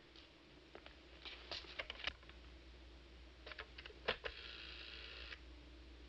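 Soft clicks and knocks of a desk telephone receiver being picked up and handled, then a buzzing tone lasting about a second near the end.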